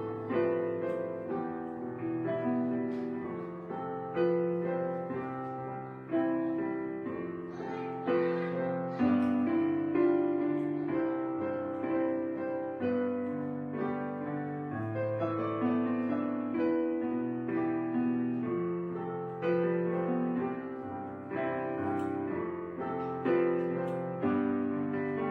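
Gentle solo piano music: slow, soft melody and chords played over sustained notes.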